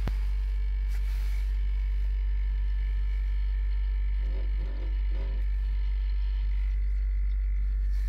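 Compressor of an old Biryusa-3 refrigerator running with a steady low hum, just after starting up.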